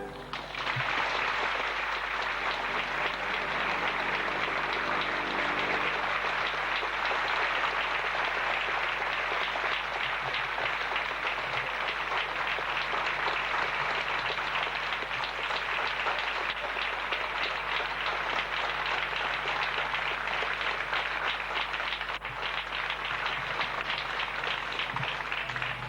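Theatre audience applauding steadily after a ballet performance, with the orchestra's final chord fading out in the first few seconds.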